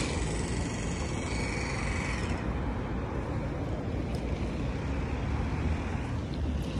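Steady road traffic noise from cars passing on a multi-lane highway. A faint high steady whine sits under it and stops about two seconds in.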